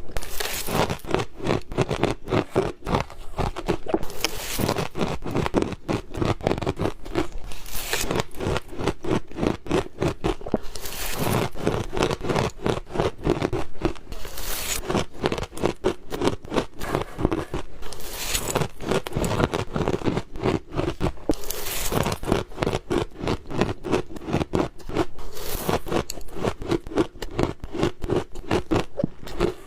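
Ice being bitten and crunched between the teeth close to the microphone: rapid crackling crunches, with a louder crunch about every three to four seconds.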